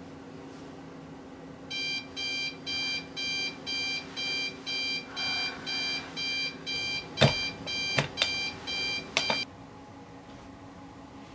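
Digital alarm clock beeping in a steady run of short high beeps, about two a second. Several sharp knocks come near the end, and the beeping stops right after the last of them.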